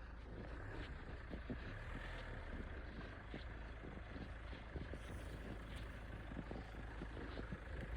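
Car driving slowly: a steady low engine rumble with many irregular clicks and crackles from the tyres over the road surface.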